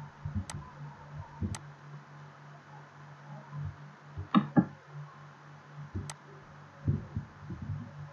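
Computer mouse clicks: a few sharp single clicks and a louder pair of quick clicks about halfway through, over a steady low electrical hum.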